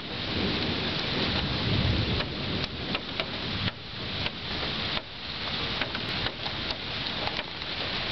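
Heavy rain falling steadily, with a low thunder rumble swelling about a second to two seconds in, and scattered sharp ticks.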